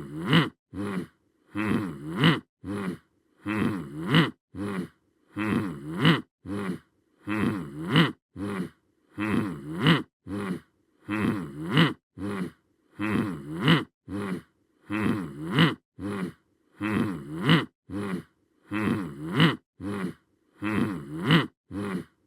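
A short voice-like stock sound effect of a few sliding-pitch syllables, looped so that the same phrase repeats about every second and a half, with brief silences between.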